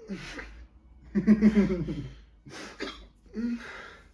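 A man's non-word vocal sounds: coughing and sharp breaths, with a loud drawn-out voiced groan about a second in. They are a reaction to a burning mouth after eating Carolina Reaper chili pepper.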